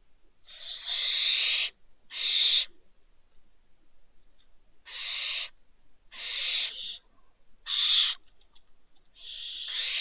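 Barn owl calling with harsh, hissing screeches: six calls, each about half a second to a second long, one to two seconds apart.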